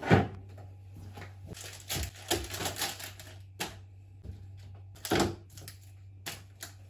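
Packaged foods being set down on refrigerator shelves: a series of light clicks, knocks and rustles of plastic packaging at irregular intervals, with a low steady hum underneath.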